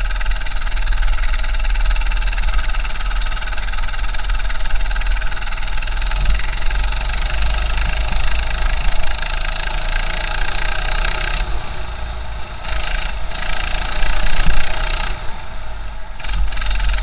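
200cc four-stroke go-kart engine running under load on track, easing off briefly twice in the second half, muffled as heard through an action camera's waterproof housing.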